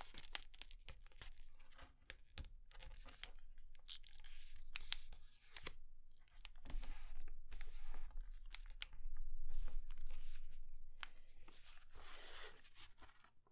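A sheet of paper rustling and crackling as it is folded and creased by hand, in irregular bursts of crisp clicks and crinkles.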